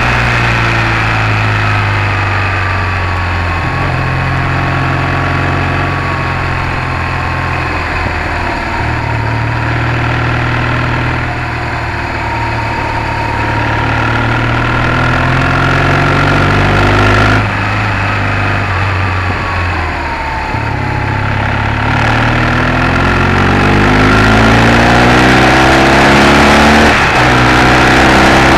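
BMW R 1200 GS air-cooled boxer twin running under way on a mountain pass, its note rising and falling with the throttle through the bends. Over the last few seconds the revs climb steadily, then drop sharply at a gear change.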